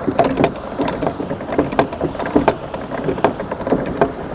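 Lock paddle gear being wound with a windlass: quick, irregular metallic clicks and clanks from the ratchet and pawl, several a second, as the paddle is raised to drain the lock.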